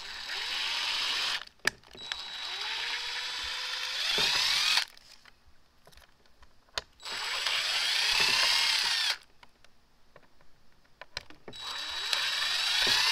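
DeWalt 20V cordless impact driver with a small drill bit running in four separate bursts, each whining up in pitch as it spins up, while it drills small pilot holes through a paper template into a Sea-Doo's plastic panel. A few light clicks fall in the pauses between bursts.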